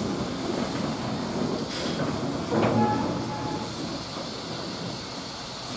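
Train running on the rails, with a sharp clatter just under two seconds in and a brief high squeal about three seconds in, the sound easing off toward the end.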